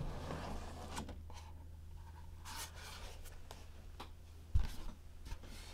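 Rigid cardboard gift box being opened: the close-fitting lid slides off with faint rubbing of card on card and a few light ticks, then a soft thump about four and a half seconds in.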